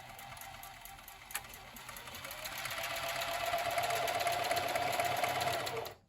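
Electric sewing machine stitching: a fast, even run of needle strokes over its motor whine, which speeds up and gets louder from about two seconds in, then stops abruptly just before the end. There is a single click about a second in.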